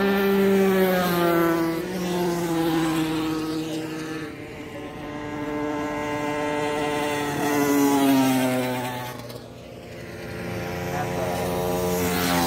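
Racing motorcycles passing one after another at speed. Each engine note swells as the bike approaches and then drops in pitch as it goes by. Another bike approaches loudly near the end.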